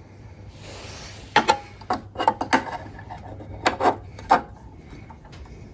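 Handling noise from hard objects being moved and set down. A brief rustle comes first, then a run of about eight sharp knocks and clatters over some three seconds, the last near the end the loudest.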